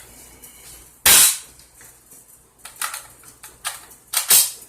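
Metallic clacks of a Zastava M92 AK pistol's bolt and magazine being worked by hand: a loud clack about a second in, a few light clicks, then another loud clack near the end.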